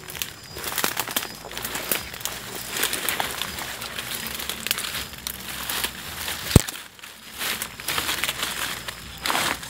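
Dry leaves and twigs rustling and crackling as someone pushes through dense undergrowth, with one sharp knock or snap about six and a half seconds in.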